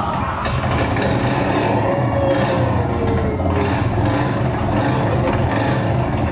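Heavy motorcycle engine sound effect played over loudspeakers, running steadily with a deep, pulsing rumble and a brief rise in pitch partway through.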